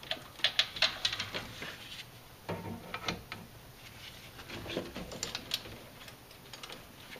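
Scattered light metallic clicks and clinks as steel rocker arms are worked out of a 4.7 L V8's valve train by hand and laid down, in small clusters about a second and a half apart.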